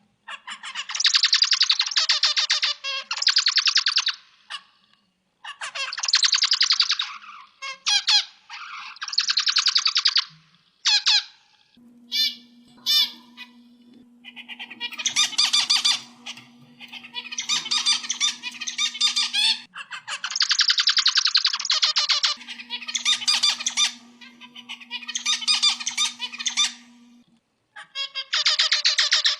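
Zebra finch singing: repeated song phrases of rapid, dense notes, each phrase one to three seconds long, separated by short pauses.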